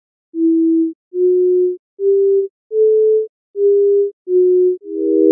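Computer-synthesized pure sine tones sonifying tracked wooden blocks. Six short notes step up in pitch and then back down, following the pyramid of small blocks. Near the end three tones begin sounding together as one held chord.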